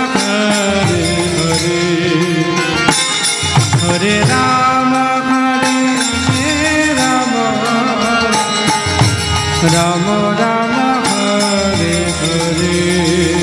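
Background Krishna devotional song: a voice singing a melody over instruments, with a steady percussion beat.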